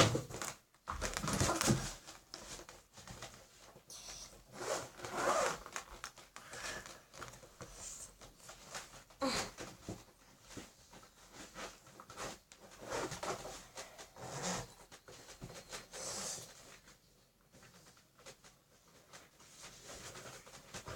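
Intermittent rustling, scraping and small knocks of things being handled and moved about, with a quieter stretch near the end.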